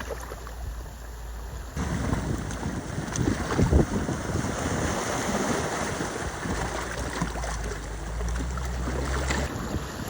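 Wind buffeting the microphone over sea waves washing against the shore. It grows louder about two seconds in.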